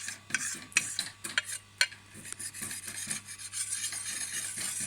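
Small sharpening stone worked against the steel blade of a billhook to take off the burr. There are several short, sharp scrapes in the first two seconds, then steady rubbing strokes.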